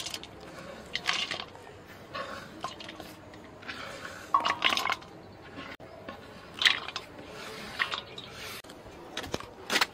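Short, scattered kitchen handling sounds, about ten in all: wet scrapes, taps and small splashes as chopped vegetables are tipped into grated raw banana in a vessel.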